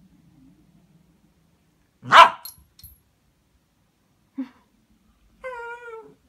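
Small dog barks once sharply about two seconds in, gives a short yip a couple of seconds later, then a brief whine that falls slightly near the end. It is begging to be lifted up onto the bed.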